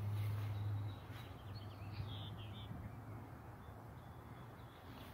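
A low steady hum, loudest for about the first second and then fading, with a few short bird calls about halfway through.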